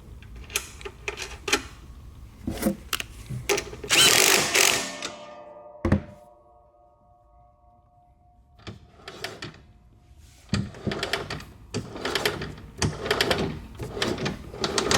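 Tools and parts clicking and knocking during work on a Toro Timemaster mower's rear wheel. About four seconds in there is a loud clang that rings on for a few seconds, cut by a sharp knock. After a quiet spell, irregular clicking and rattling starts again.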